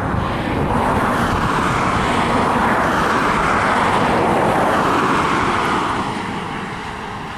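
A passing vehicle: a steady rush that swells over the first few seconds and fades away about six seconds in.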